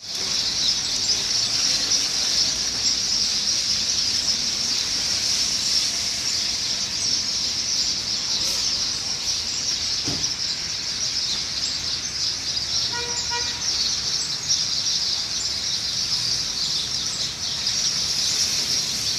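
A dense, steady chorus of many birds chirping together in a high register. About thirteen seconds in, a brief horn-like toot sounds once.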